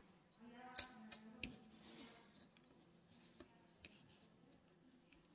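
Quiet handling sounds: a clear plastic ruler clicks and taps against a tabletop three times about a second in, then two softer ticks later on.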